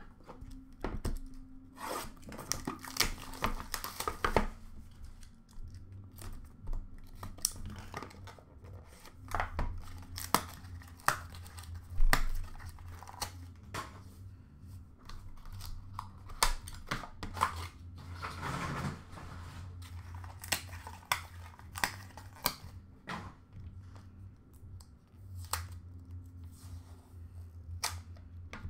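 Shrink wrap being torn off a sealed hockey card box and crinkled, with the cardboard box being opened and handled. Irregular sharp clicks and rustles, with a longer stretch of tearing a few seconds in.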